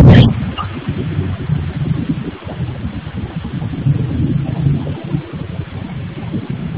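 Steady low rumble of machinery from a granite stone-working workshop, heard through a security camera's microphone. A sharp knock comes right at the start and is the loudest sound.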